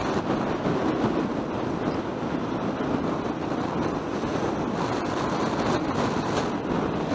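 Yamaha XT600E's single-cylinder engine running steadily at road speed, mixed with wind rush on the microphone.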